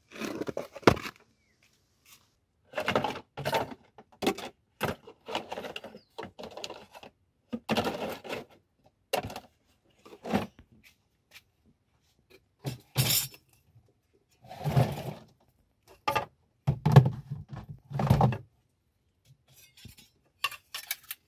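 Irregular clattering and knocks of kitchenware being handled: an aluminium cooking pot, plastic containers and bowls bumping together, in a dozen or so short bursts with pauses between.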